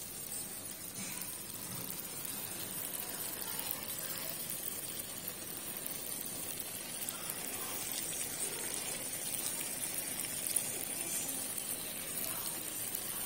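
A tomato-based meat curry sizzling steadily in hot oil in a non-stick pan.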